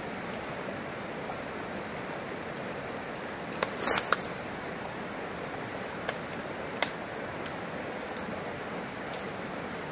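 Steady rushing background noise, with a quick cluster of sharp clicks or knocks about four seconds in and two more single clicks a few seconds later.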